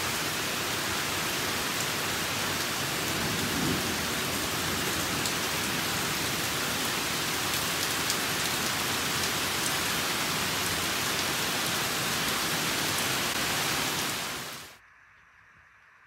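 Heavy rain pouring down steadily, heard from under a covered porch. It stops suddenly near the end.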